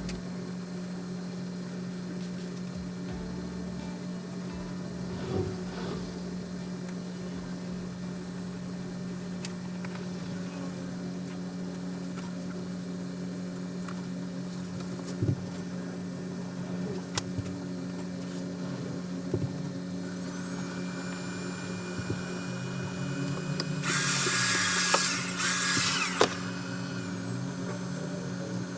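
Steady low mechanical hum with scattered clicks, then a loud two-part high whirring burst near the end.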